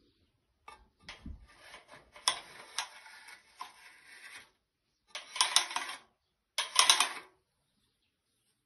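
Workshop handling noises: clicks, clattering and scraping as materials for the fireplace frames are worked, with a dull thump about a second in. Two louder scraping bursts come about five and seven seconds in, each lasting around a second.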